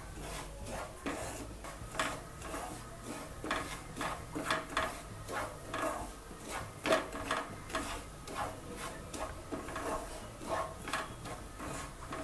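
Wooden spatula stirring and scraping semolina (Bombay rava) roasting in a little ghee in a nonstick frying pan, in irregular strokes about one or two a second.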